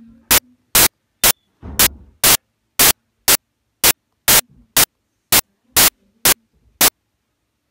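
Short, loud bursts of static hiss repeating at an even rate of about two a second, stopping about seven seconds in, with a faint low hum between them.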